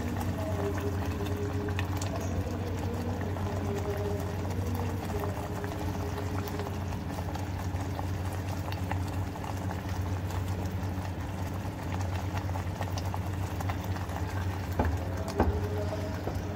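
Thick tomato masala bubbling and spattering in a clay handi as it is fried down and stirred with a spatula, over a steady low hum. A couple of sharp knocks of the spatula against the pot near the end.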